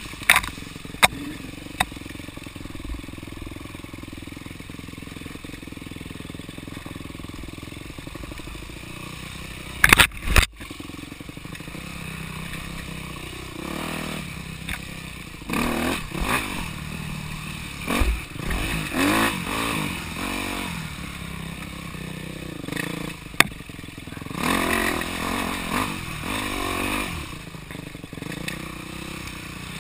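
Dirt bike engine running as it rides a wooded trail. It runs steadily at first, then in the second half the revs rise and fall again and again as the throttle is opened and closed. A few sharp knocks are loudest, a pair of them about ten seconds in.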